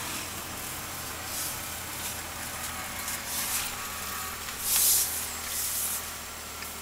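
Cabin sound of a 1962 Ford Fairlane on the move, its 200 cubic-inch straight-six running with a steady low hum over road noise. A brief loud hissing rush comes in about four and a half seconds in, with a weaker one just after.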